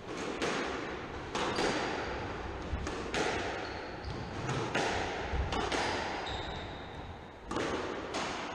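Squash rally: sharp cracks of the racket hitting the ball and the ball striking the court walls, about a dozen impacts, mostly in pairs every second or so, each ringing briefly in the enclosed court. Short high squeaks of court shoes on the wooden floor come in the middle.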